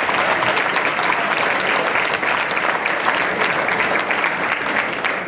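A large audience applauding, dense steady clapping throughout.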